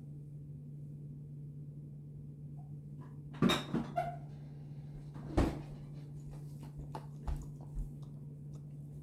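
Household handling noises: a few knocks and clunks, two loud ones about three and a half and five and a half seconds in, with lighter ones later, over a steady low hum.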